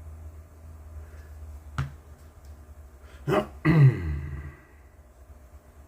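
A sharp click about two seconds in, then a man's two short cough-like throat sounds, the second louder and falling in pitch, over a low steady hum.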